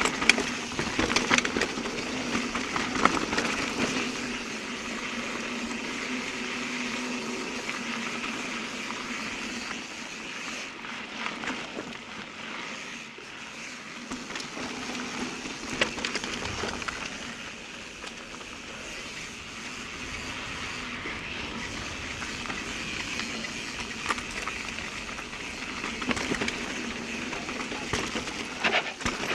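Mountain bike being ridden on a dirt trail: steady tyre and riding noise with scattered rattles and knocks from the bike over rough ground.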